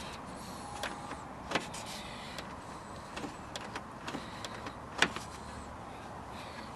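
Sharp clicks and clacks from a car door's latch and lock mechanism being worked after a new interior door handle is fitted. The loudest click comes about five seconds in, with another about a second and a half in and fainter ticks between.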